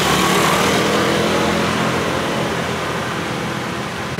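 Motor scooters riding past close by, their small engines running amid steady street traffic noise that eases off a little toward the end.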